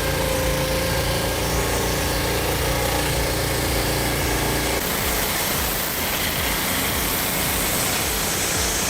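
Small engine of a portable sawmill running steadily. The sound changes abruptly about five seconds in.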